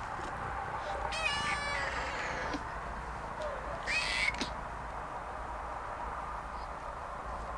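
Cat meowing twice: a longer high meow with a wavering pitch about a second in, and a short meow about four seconds in from a kitten, over a steady low hum.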